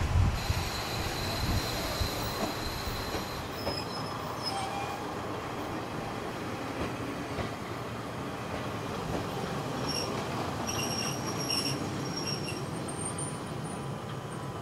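KiHa 40 diesel railcar braking into the station, its brakes giving a high-pitched squeal for about three seconds. Shorter squeals come again about ten to twelve seconds in. Underneath is the steady running of the diesel railcars.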